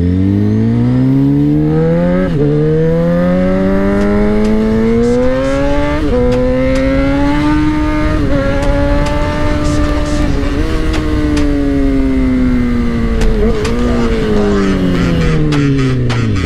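Suzuki GSX-R 600 inline-four engine accelerating hard. The note climbs through several upshifts, dipping briefly at each shift about 2, 6, 8 and 10 seconds in. It then holds high and falls steadily as the throttle eases off, dropping sharply at the very end.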